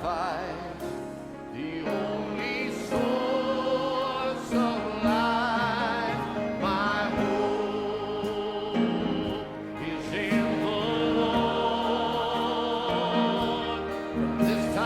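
Gospel choir singing with vibrato over sustained accompaniment chords.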